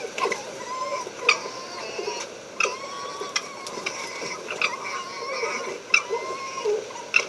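Red foxes vocalising: short, thin whining calls mixed with sharp, rattling clicks, typical of the chattering 'gekkering' foxes make when fighting or playfighting.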